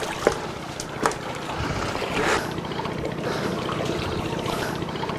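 Water splashing and trickling, with a few sharp knocks near the start.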